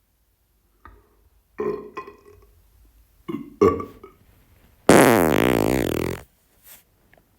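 A person's bodily noises: a few short burps, then a loud, drawn-out fart lasting over a second.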